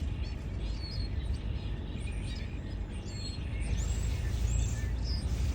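Steady outdoor background rumble and hiss, with a few short, high bird chirps in the middle.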